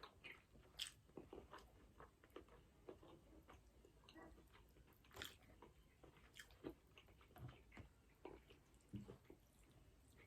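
Faint chewing of a mouthful of beef pho, rice noodles and thinly sliced beef, with scattered soft mouth clicks and smacks.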